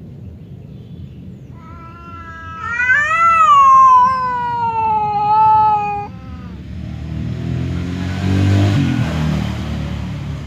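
Domestic cat yowling in an aggressive standoff: one long, drawn-out yowl that rises and then slowly falls, followed by a lower, rougher growl that swells and breaks off near the end. This is the threat call of cats squaring up to fight.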